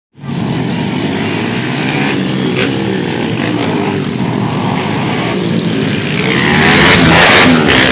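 Several small underbone racing motorcycles run hard through a tight circuit, their engines rising and falling in pitch as the riders rev and ease off. They grow loudest about seven seconds in as a pack of bikes passes close by.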